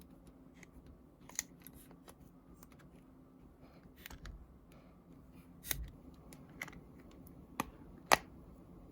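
iPhone 8 Plus replacement screen being pressed down into the phone's frame: scattered small clicks and crackles as it seats, with a sharp snap, the 'crunch', about eight seconds in.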